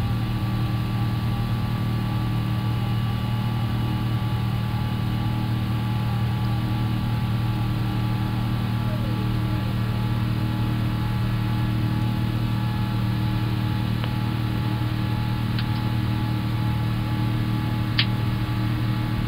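Steady flight-deck noise of an Airbus A350-1000 in the climb after takeoff: a constant low hum under an even hiss of air, with a few faint steady tones above it. A sharp click near the end.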